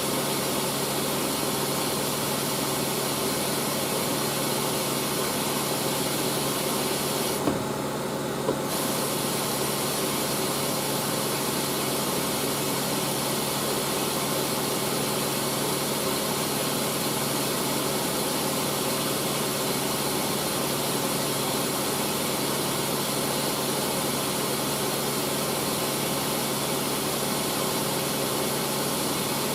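Hoover SIX AAA160 washing machine filling with water for its first rinse: a steady rush of water through the inlet valve over a low electrical hum. About eight seconds in, the hiss drops out for about a second, with a small click at each end.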